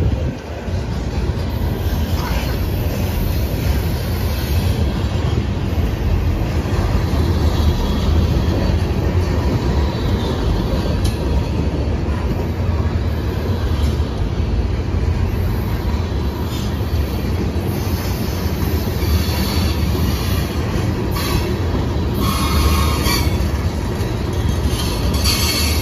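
Covered hopper cars of a freight train rolling past at close range: a steady, loud rumble of steel wheels on the rails. Brief high wheel squeals come and go in the second half.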